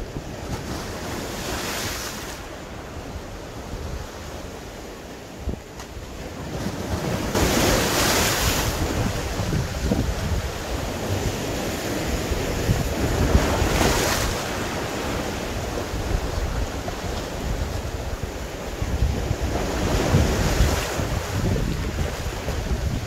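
Strong wind buffeting the microphone with a constant low rumble, while sea waves break against the rocks in four loud rushes about six seconds apart.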